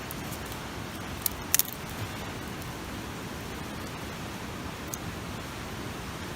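Newly lit campfire of dry grass and lichen: a steady hiss with a few sharp crackles, one a little over a second in, a quick double pop just after, and a faint one about five seconds in.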